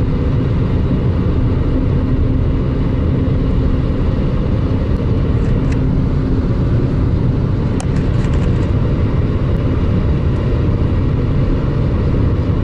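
Lada Granta engine running steadily at about 3000 rpm, its Jatco JF414E automatic in fourth gear with overdrive on, heard as a steady low drone inside the cabin. A humming tone in the drone fades out about halfway through.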